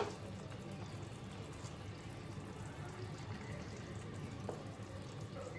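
Thick fish gravy simmering faintly in a non-stick frying pan while a spatula turns the fish pieces over, with one sharp knock at the very start.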